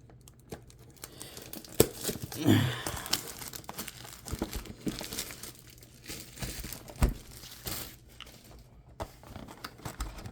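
Plastic wrapping crinkling and tearing as a sealed box of trading cards is ripped open, with scattered sharp clicks of handling. A short vocal sound comes about two and a half seconds in.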